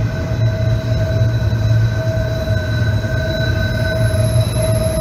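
Union Pacific freight train of autorack cars rolling around a tight loop curve: steel wheels squealing in several steady high tones that swell and fade over a low rumble.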